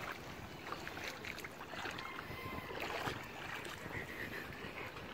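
Shallow seawater sloshing and lapping around dogs wading and lying in it, with a few faint clicks.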